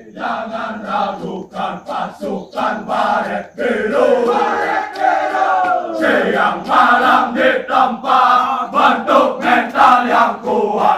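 A group of young men singing a running song together in unison as they jog in formation.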